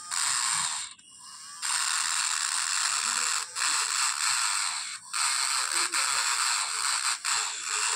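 Battery-powered engraving pen grinding its bit against a glass sheet as it etches lines. It runs in several passes of one to two seconds, with short breaks between them.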